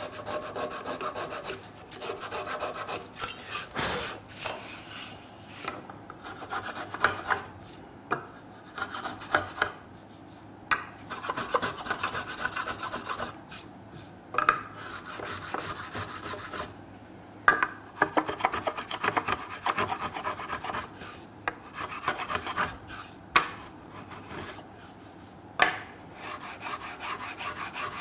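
A flush-trim saw and a small block plane working wooden wedges and tenon ends flush with the surface: repeated rasping strokes on the wood in uneven runs with short pauses, and a few sharp knocks.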